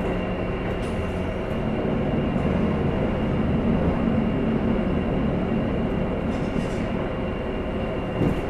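KiHa 11 diesel railcar standing at a station with its diesel engine idling steadily, heard from inside the passenger cabin as a constant hum with a thin high whine. A short knock comes near the end.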